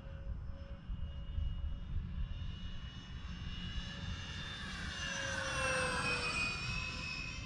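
Twin electric ducted fans of an E-flite A-10 radio-control jet whining as it makes a low pass, the pitch dropping as it goes by about five to six seconds in. Wind rumbles on the microphone underneath.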